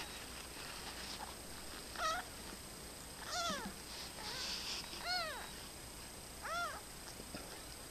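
Newborn kitten mewing four times, short high cries about a second and a half apart, each rising and then falling in pitch.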